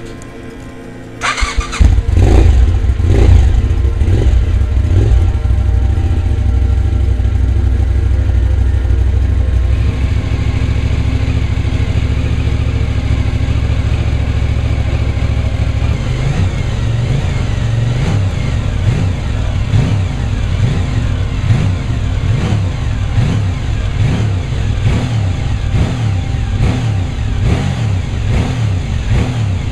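Sport motorcycle engine started: a brief crank about a second in, then it catches and is blipped a few times. It is held at a steady high idle, then revved up and down over and over through the second half.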